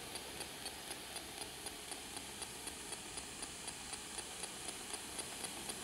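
Spirit Box radio sweeping between stations: faint static hiss with a light tick about four times a second as it jumps channel, with no voice coming through.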